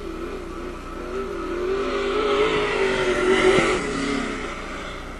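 Dirt late model race car's V8 running hard on a dirt oval, its engine note rising and falling with the throttle. It grows louder to a peak about three and a half seconds in, then fades as the car moves away.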